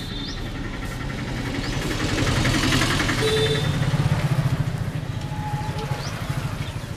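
Engine of a passing motor vehicle, rising to its loudest around the middle and then fading.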